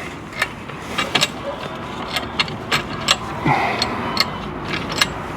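Hand-tool work on a drag link: a string of sharp metallic clicks and taps at irregular intervals, roughly one every half second, over a faint steady background.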